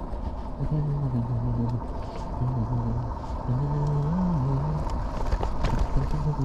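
A man's low voice talking in short phrases with pauses, over a steady low rumble.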